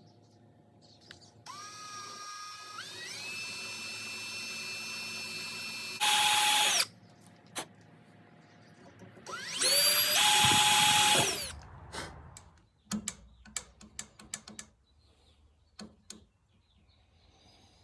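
Power drill with a small bit: the motor spins up and runs at low speed with a whine that steps up in pitch, then twice runs loud at full speed, the second time rising in pitch before stopping. A scatter of small clicks and knocks follows.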